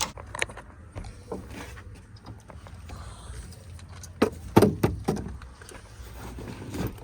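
Skateboard wheels rolling over pavement, a steady low rumble broken by a few sharp knocks, the loudest about four and a half seconds in.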